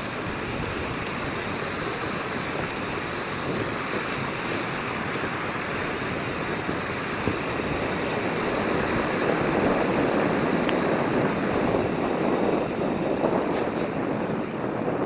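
Primus gas canister stove burner running with a steady hiss, heating water in its pot, a little louder in the second half.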